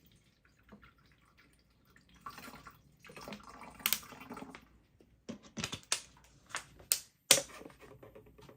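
Water being poured into the top-fill tank of a Govee cool-mist humidifier, followed near the end by a quick run of sharp clicks and knocks.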